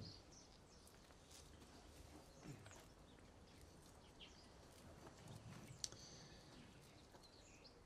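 Near silence: faint outdoor ambience with a few faint bird chirps, and a small handling knock about six seconds in as the handheld microphone is lifted off its stand.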